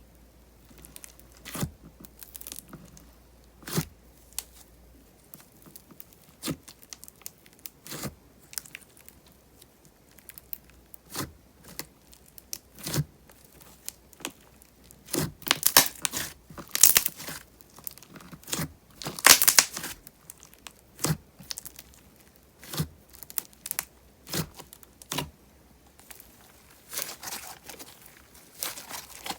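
Thick, glossy slime being pressed and folded by hand, its trapped air bubbles popping in sharp cracks. The pops come singly every second or two, with a denser, louder run about halfway through.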